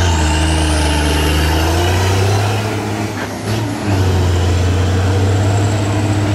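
Tractor diesel engine running hard as the tractor climbs a dirt slope, belching black smoke under heavy throttle. The engine note dips briefly about halfway through, then picks up again.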